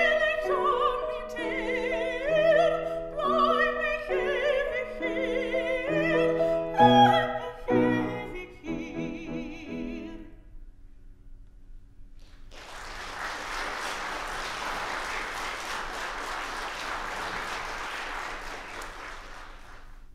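Soprano singing a classical song with grand piano accompaniment, the song ending about ten seconds in. After a brief pause, an audience applauds steadily.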